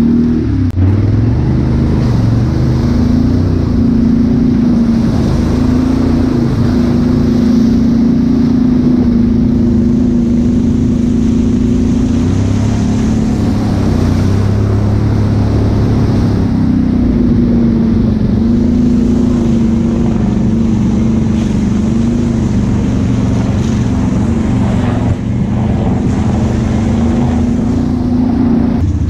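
ATV engine running at a steady speed while the quad rides along a muddy trail, its pitch easing off briefly a couple of times.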